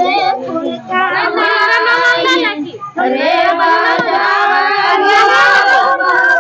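A group of girls and women singing a Karma puja devotional song together in long held phrases, with a short break for breath just before halfway.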